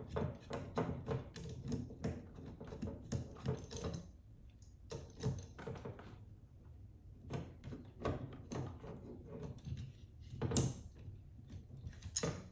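Irregular clicks, knocks and rattles of a tabletop microphone stand and microphone being handled while the mic is fitted onto the top of the stand, with a louder knock about ten and a half seconds in.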